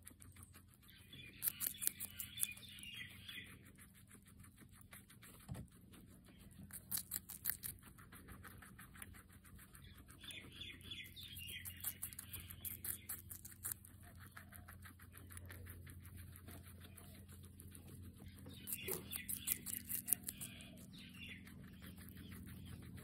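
Guinea pig biting and chewing pieces of red bell pepper, crisp crunching in about four bursts of quick chews.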